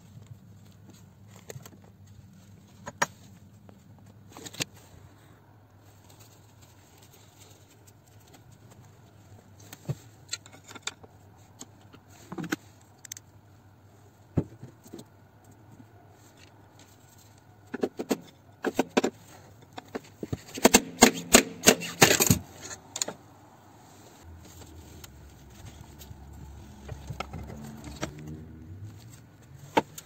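Hand tools clinking and scraping against a car turbocharger's metal fittings as it is worked loose: scattered single clicks, then a quick run of loud metallic rattles and clanks about two-thirds of the way through.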